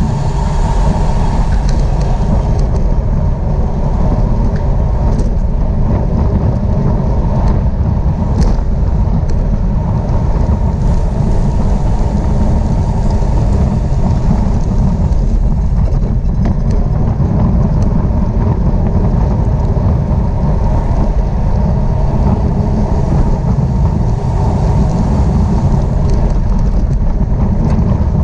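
Wind buffeting the microphone of a camera riding along in a bicycle road race, a loud, steady low rumble.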